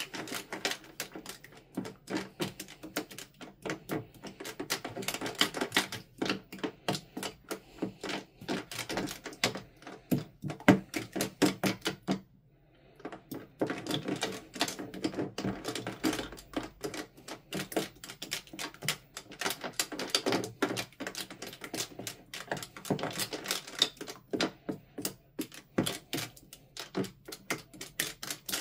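Foamy, bubbly slime being stirred and pressed with a metal ladle: a dense run of sticky wet clicks and pops, with a short pause about twelve seconds in.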